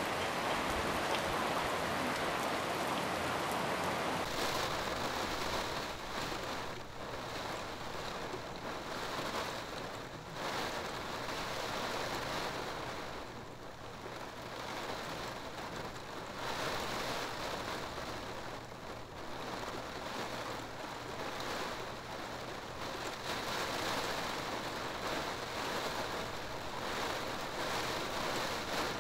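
Heavy rain pouring down in a storm, with gusty wind: a continuous rush of noise that swells and eases with the gusts.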